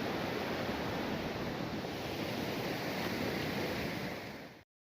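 River water rushing over rocks in a steady noise, fading out and cutting to silence near the end.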